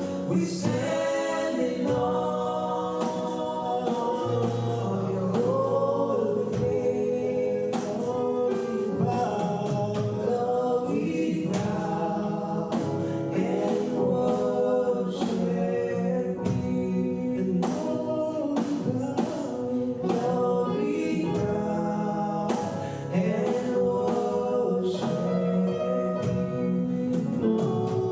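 Gospel worship music with voices singing, continuing steadily without a break.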